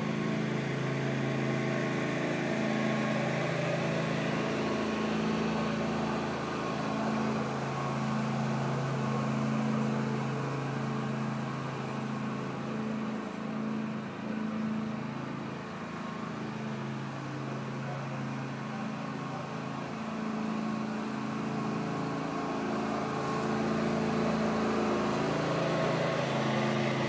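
John Deere riding lawn mower's engine running steadily as the tractor drives around the lawn, a little quieter in the middle as it moves away and louder again near the end as it comes close.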